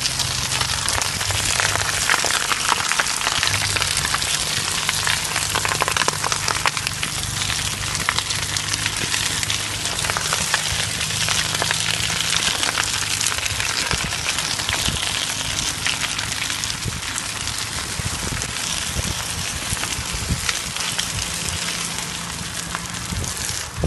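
Off-road vehicle's tyre rolling slowly through wet mud and gravel, a dense steady crackling hiss, with the engine running at low revs underneath.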